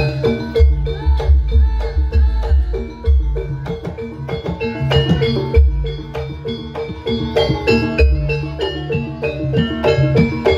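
Live jaranan gamelan accompaniment: mallet-struck metal percussion ringing in a quick, repeating pattern over heavy drum strokes.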